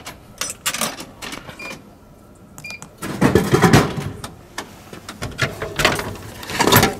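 Coins clinking into a drink vending machine's coin slot, a couple of short beeps, then a can dropping with a loud clatter through the machine into the pickup bin, followed by knocks from the bin's flap as the can is taken out.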